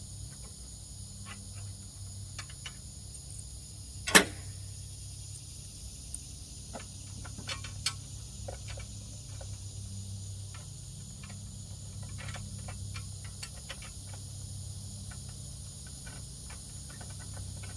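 Scattered light clicks and taps from hand work on the riding mower's switch and wiring parts, with one sharp, much louder clack about four seconds in. A steady low hum runs underneath.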